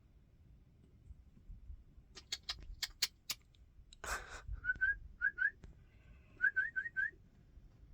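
A run of sharp clicks, a brief hiss, then several short rising whistled chirps in quick little groups.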